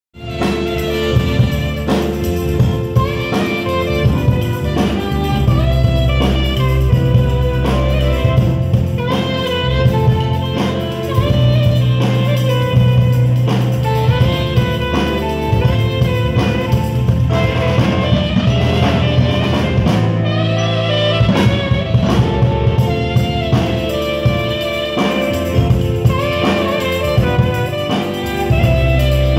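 Live band music: an alto saxophone plays the melody over electronic keyboard and drum kit, with long held bass notes underneath.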